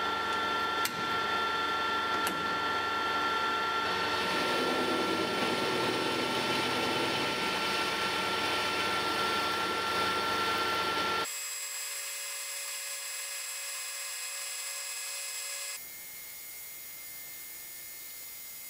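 Colchester Student 2500 metal lathe running under power with a steady whine while a carbide tool turns a bar down in diameter; the cutting noise grows about four seconds in. The sound changes abruptly twice, at about eleven and sixteen seconds, each time becoming quieter with a different whine.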